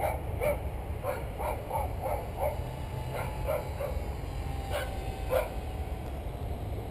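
A dog barking repeatedly in short, unevenly spaced barks, stopping about five and a half seconds in, over a steady low rumble of wind on the microphone. About halfway through, the faint steady whine of the small RC plane's electric motor is heard as it passes.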